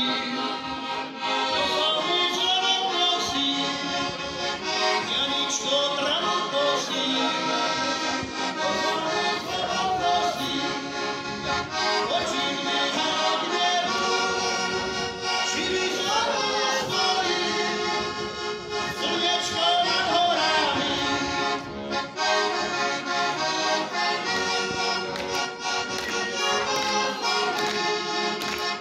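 Heligónka, a Slovak diatonic button accordion, playing a folk tune with continuous melody and chords.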